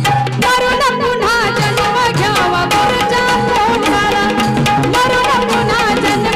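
A woman singing a Marathi devotional song in a wavering, ornamented melody, accompanied by steady drum strokes and a held instrumental note.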